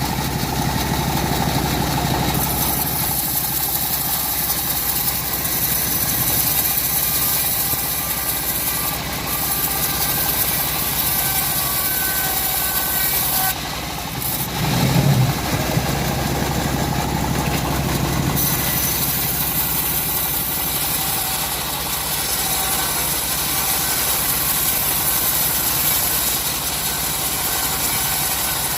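Band sawmill running steadily as it saws timber, its motor droning throughout, with a brief dip and surge about halfway through.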